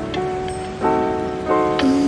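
Background music: held chords on a pitched instrument, changing to a new chord three times.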